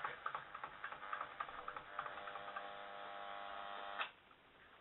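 UNI-COM clock radio's speaker giving crackling static and then a steady buzzing tone as the tuning dial is turned between stations. A sharp click about four seconds in, after which the sound drops to a faint hiss.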